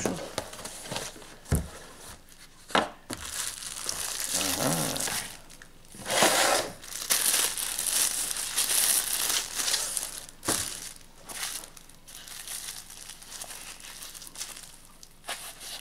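Plastic packaging crinkling and rustling in irregular bursts as a knife and its sheath are unwrapped, with a few sharp knocks from handling.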